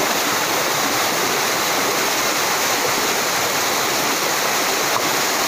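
Waterfall pouring over rock ledges into a pool: a steady, loud rush of falling water.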